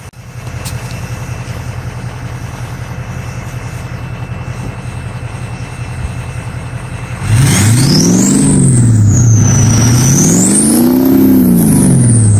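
Ford 6.0 Power Stroke turbo-diesel V8 idling steadily, then revved twice from about seven seconds in, getting much louder, with a high turbo whistle from its Wicked Wheel 2 compressor wheel rising and falling with each rev.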